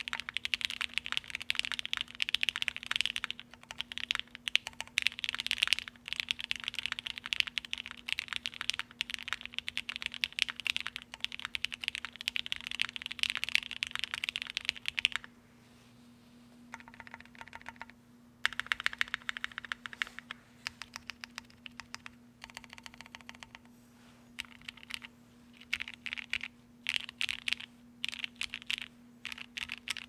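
Typing on a Lin Whale custom mechanical keyboard with broken-in, lubed and filmed Gateron Ink switches, a POM half plate and GMK keycaps. A dense, rapid run of keystrokes gives way about halfway to a brief pause, then to slower, broken runs of keystrokes, over a faint steady hum.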